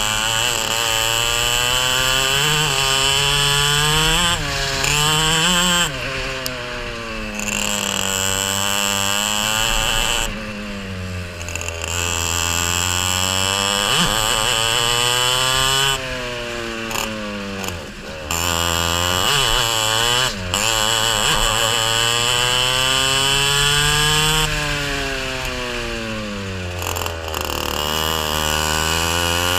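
Racing kart engine heard onboard at full race pace, its pitch climbing as it accelerates and dropping sharply as the driver lifts off for corners, over and over.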